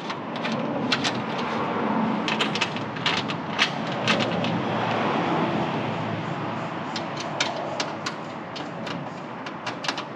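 Small sharp clicks and taps of screws and metal parts being handled as screws are threaded finger-tight into nutserts in a steel rear door, irregular throughout. Under them is a rushing background noise that swells over the first few seconds and then eases.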